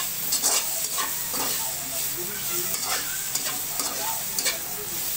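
Metal spatula scraping and knocking against a wok in repeated strokes as meat is stir-fried, over a steady sizzle of frying oil.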